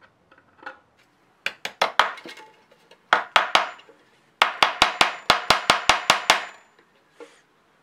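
Hammer driving a nail through a sheet-metal roof into a wooden birdhouse: a few light taps, three more after a pause, then a quick run of about a dozen strikes, about six a second.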